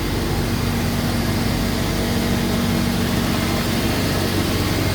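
CNC panel saw running steadily between cuts, its electric motors giving an even hum with no cutting or impacts.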